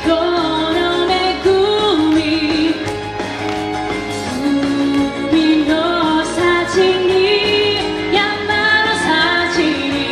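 A woman singing a pop song live into a microphone, backed by electric bass and keyboard.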